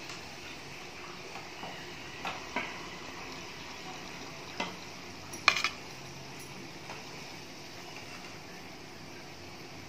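Oil sizzling steadily as whole bananas fry in a kadai. A handful of sharp metal clinks from a slotted spoon against the pan and plate come through it, the loudest about five and a half seconds in.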